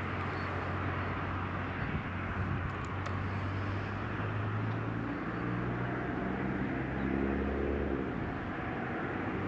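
Motor vehicle engine hum over steady outdoor background noise, its pitch stepping upward between about five and eight seconds in.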